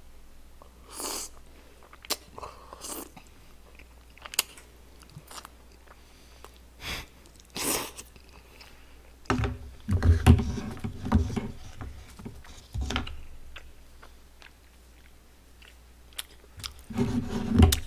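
Close-miked mouth noises of a person eating chewy wheat-flour tteokbokki rice cakes in sauce: short slurps and smacks, then a louder stretch of chewing about halfway through.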